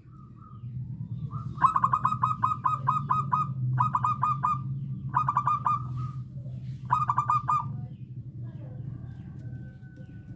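Zebra dove (perkutut) cooing: four bursts of rapid staccato notes, each burst a second or two long, with short gaps between. A steady low hum runs underneath.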